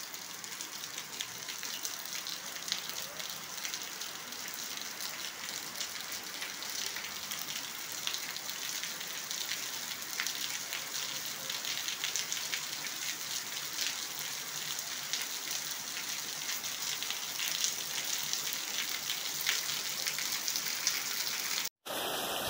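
Rain falling steadily: an even hiss scattered with many small drop hits. It cuts out for a moment near the end, then rain comes back.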